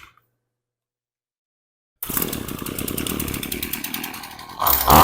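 After about two seconds of silence, the HomePro string trimmer's two-stroke engine runs with a fast, rattly idle, then revs up sharply near the end. It is running well now that the air leak through the cracked primer bulb has been dealt with.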